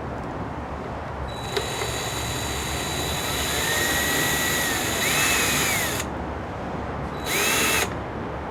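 Power drill running as it backs out small rusted bolts on an outboard motor. One long run of about four and a half seconds with the motor's whine rising in pitch, then a short burst of under a second.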